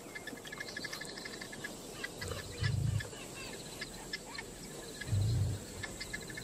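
Small birds chirping and trilling in quick repeated notes, with two short, deep, low swells of soundtrack music, one about two and a half seconds in and one about five seconds in.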